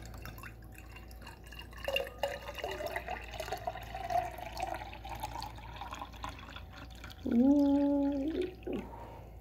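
A drink is poured from an aluminium can into a glass. The splashing starts about two seconds in and rises in pitch as the glass fills. Near the end there is a short hummed 'ooh' from a person, the loudest sound.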